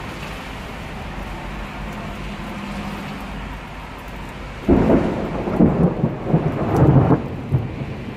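Steady rain, then a little past halfway a close thunderclap breaks out suddenly and rumbles in several surges for two or three seconds.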